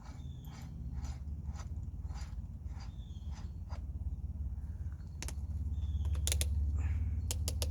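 A Bauer cordless hammer drill being set up by hand: regular small ratcheting clicks, about three a second, then a few sharper clicks from about five seconds in, over a steady low hum.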